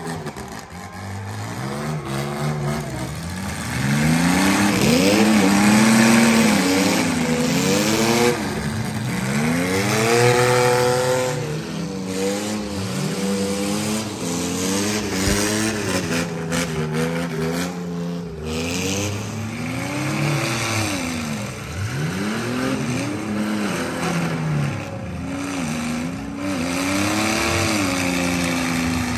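Engines of several demolition derby mini trucks and SUVs revving hard, again and again, each rev rising and falling in pitch, with more than one engine heard at once.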